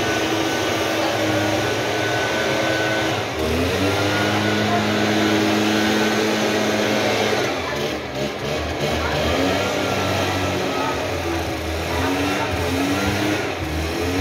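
Gas-powered backpack leaf blower running steadily, its engine pitch rising and dipping as the throttle is worked, with a shift about three and a half seconds in and several swells near the end.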